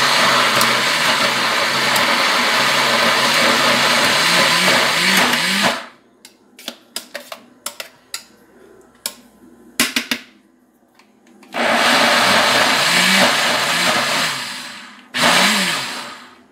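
Countertop blender running on a thick load of cooked rice, eggs and butter, pulsed in bursts to break up the rice. It runs for about six seconds and stops. After a pause with a few light clicks and knocks, it runs again for a few seconds and gives one short final burst that winds down.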